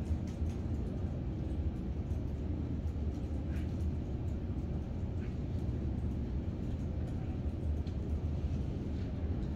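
Steady low room hum of machine noise, with a few faint clicks near the start.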